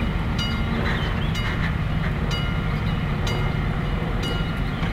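Level-crossing warning bell of an AŽD 71 crossing striking about once a second, five ringing strokes, over a steady low rumble.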